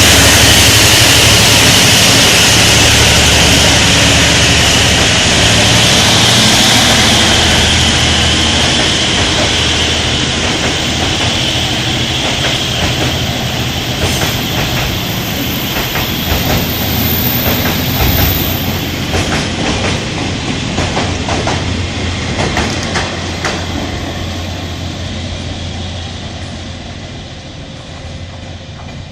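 Container freight train's wagons rolling past on the track, a steady rumble of wheels on rail with scattered clacks over the rail joints. Loud at first, it fades steadily as the train draws away.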